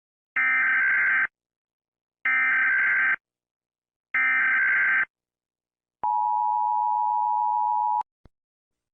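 Emergency Alert System SAME header: three identical bursts of harsh digital data screech, each just under a second and about two seconds apart. About six seconds in, the steady two-tone EAS attention signal follows and holds for about two seconds before cutting off. Together they mark the start of an emergency alert.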